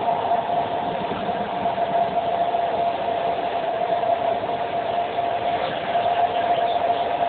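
Steady running noise of a passenger train heard from inside the carriage while it travels at speed, with one constant whining tone through it.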